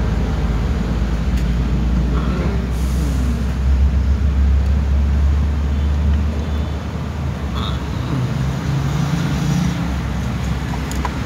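Steady low rumble of background road traffic, swelling between about three and six seconds in, with a few light clicks over it.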